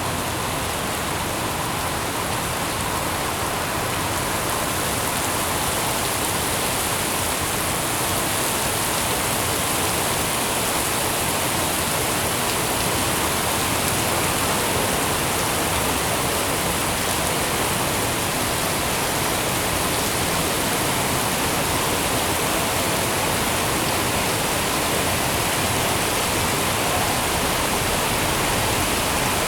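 Steady heavy rain falling in a city, an even unbroken hiss of rain on surfaces.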